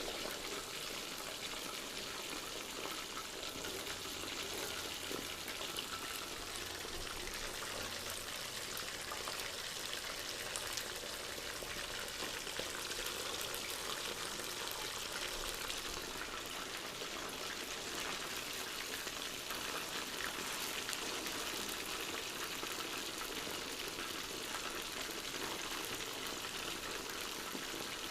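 Chicken pieces coated in a spiced marinade deep-frying in hot oil: a steady crackling sizzle with fine pops throughout.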